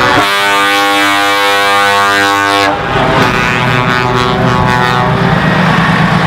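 A truck's air horn sounds one long, steady blast of about two and a half seconds and stops abruptly. Truck diesel engines run on as the lit-up trucks roll past.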